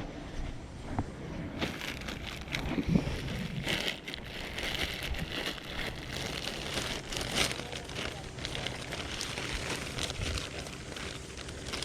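Crinkling and rustling with many small crackles, as of plastic or paper being handled, starting about a second and a half in over a low steady hum.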